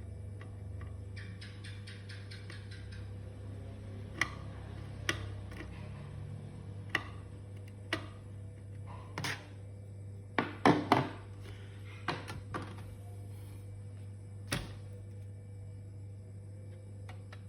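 Scattered sharp clicks and light knocks of small laptop parts being handled, over a steady low hum. A quick run of fine ticks comes about a second in, and the loudest knocks fall near the middle.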